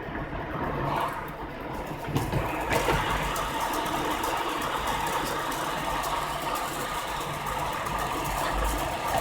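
Vehicle engine running with a steady low hum, joined about three seconds in by a loud even hiss with crackling, like wind rushing past the vehicle, which stops abruptly at the end.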